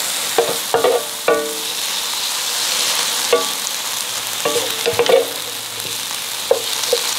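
Beef strips and red onion sizzling steadily in a Sunbeam Duraceramic electric frypan. They are stirred with a wooden spatula and wooden fork, which knock and scrape against the ceramic-coated pan every second or so.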